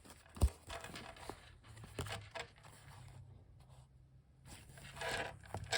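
Faint handling sounds of a freshly unwrapped present: a soft knock about half a second in, then light scrapes, rustles and clicks, busier near the end.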